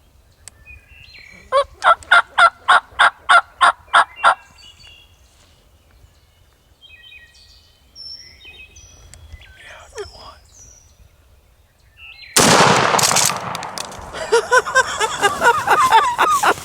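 A rapid series of about ten turkey yelps, then faint songbird chirps. Near the end comes a sudden loud blast across the whole range, which fits a shotgun shot at the turkey, followed by loud commotion.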